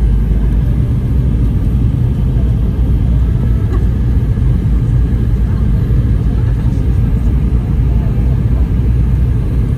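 Steady low rumble of an airliner's engines and airflow heard from inside the passenger cabin.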